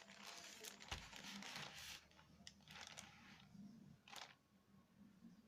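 Courier parcel packaging being handled: faint rustling and crinkling for about two seconds, with a low thump about a second in, then two short rustles.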